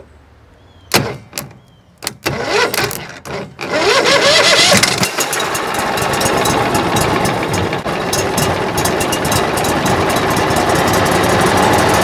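Briggs & Stratton Vanguard 23 HP V-twin engine on a surface-drive boat motor, started by bridging the starter solenoid with a screwdriver. After a couple of brief bursts about a second in, the starter cranks from about two seconds in. The engine catches about four seconds in and keeps running steadily.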